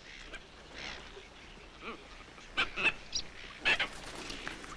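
Rufous night herons giving harsh, honking squawks: a few short calls, with the loudest bunched together in the middle.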